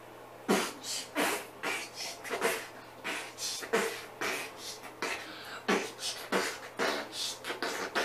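A young boy beatboxing: a run of sharp, mouth-made drum hits that starts about half a second in and keeps a beat of roughly two to three hits a second.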